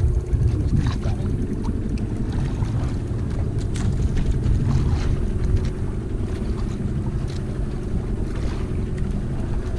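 Outrigger fishing boat's engine running steadily, a low drone, with some wind on the microphone.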